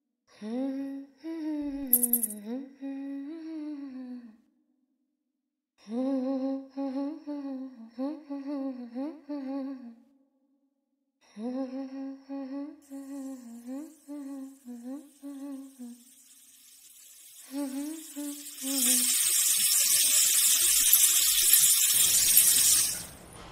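A woman humming a wandering tune in short gliding phrases, broken by a few brief silent gaps. About three-quarters of the way through, a loud steady hiss takes over for several seconds and cuts off suddenly.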